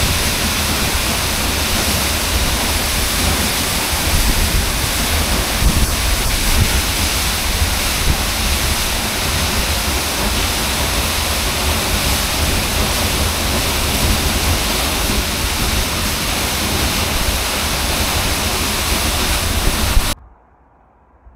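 Seljalandsfoss waterfall, heard from behind its falling curtain: a loud, steady rush of falling water and spray. It cuts off abruptly near the end.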